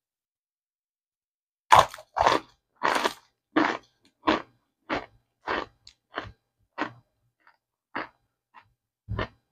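A person biting and chewing a chunk of packed cornstarch: about a dozen crisp crunches, roughly one every 0.6 s, starting about two seconds in, loudest at first and then softer.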